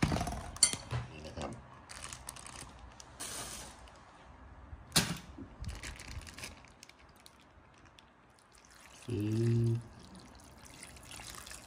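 Clicks and rustles of a takeaway bowl being handled, then tom yum broth poured from a plastic bag over noodles and pork near the end. A brief, loud, steady hum lasting under a second sounds about nine seconds in.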